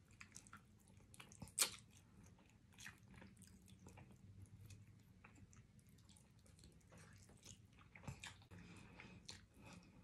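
A person faintly chewing and biting meat off neck bones, with scattered wet clicks and smacks of the mouth. One sharp click stands out about one and a half seconds in.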